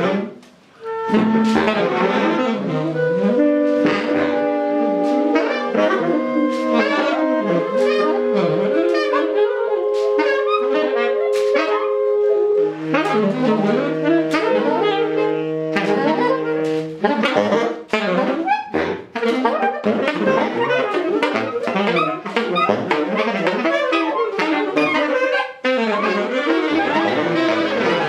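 Experimental music from an installation of instruments triggered by coloured squares. Several long held notes, wind-instrument-like, overlap and change pitch every few seconds over a scatter of sharp clicks. After about seventeen seconds the held notes give way to a denser, busier clatter of clicks and short tones.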